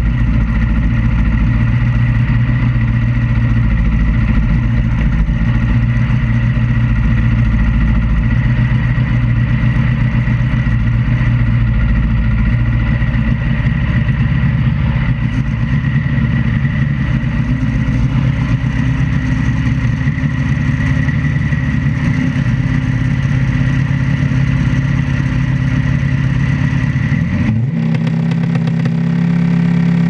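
Drag-racing motorcycle engine idling steadily on the start line. About 27 seconds in, the revs step up and hold at a higher pitch ahead of the launch.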